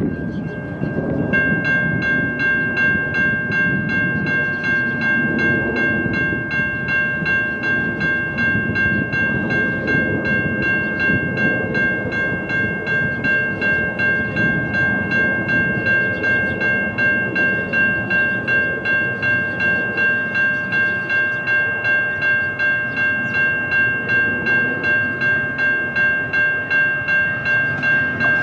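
Railroad grade-crossing bell ringing steadily, about two strokes a second, starting about a second in, over the rumble of a train.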